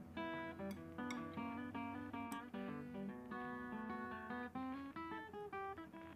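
Background music: a plucked acoustic guitar playing a quick run of notes.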